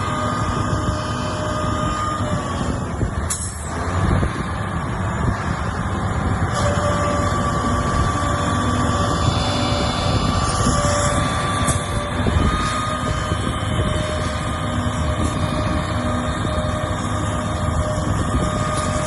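Mack water truck's diesel engine running steadily with a steady whine, as water sprays from the truck's spray heads.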